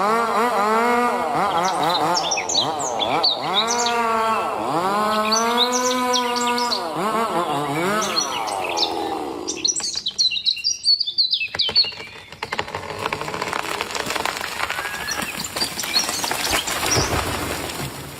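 Two-stroke chainsaw engine revving up and down over and over for about nine seconds, then dropping away. After that comes a rough, noisy crackle with scattered clicks.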